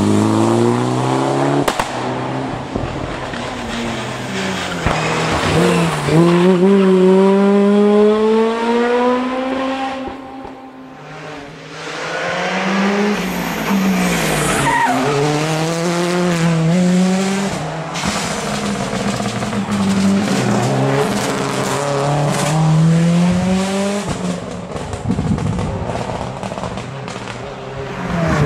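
Two rally cars driven flat out through a stage, one after the other. Their engines rev high, the pitch climbing through each gear and dropping at each change or lift. The first car fades away about ten seconds in, and the next one comes up and passes.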